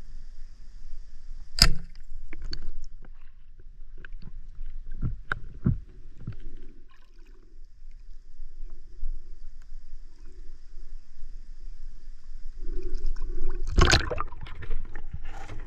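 Water splashing and sloshing in a shallow stream, with a sharp knock under two seconds in, scattered smaller knocks, and a louder splash near the end.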